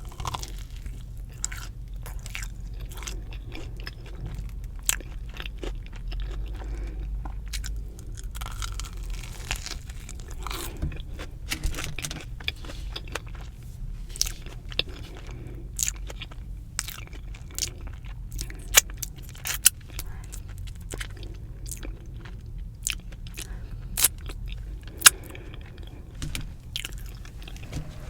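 Close-miked chewing of crispy fried Korean cheese dog, with irregular sharp crunches and a few louder bites in the second half.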